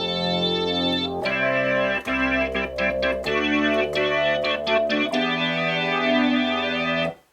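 Roland JX-3P analog polysynth with the Kiwi-3P upgrade playing its organ preset: sustained chords that change every second or two, then cut off abruptly near the end.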